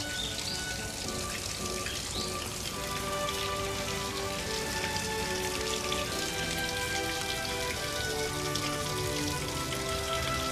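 Background music of held notes that step from pitch to pitch, over a steady crackling hiss.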